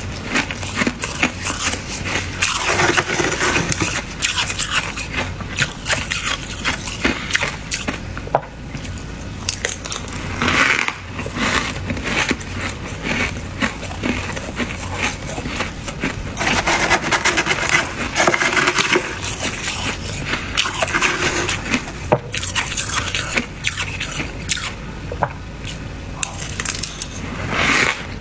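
Thick, crunchy freezer frost being scraped, crackling and crunching in close succession with only brief lulls.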